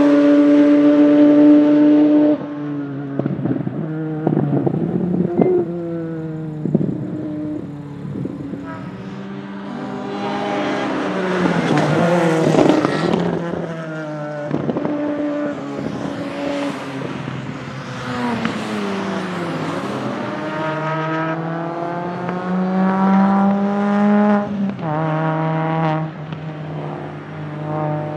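The peripheral-ported 13B two-rotor rotary engine of a Mazda RX-7 Group B rally car, driven hard on track. Its pitch repeatedly climbs and drops as it revs up through the gears and comes off the throttle for corners.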